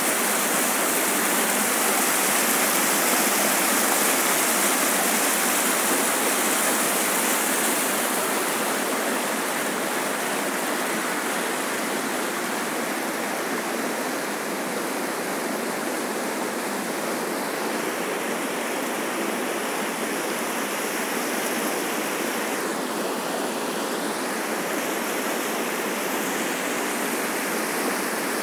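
A shallow river rushing over a stony bed, a steady rush of water that grows slightly softer about eight seconds in.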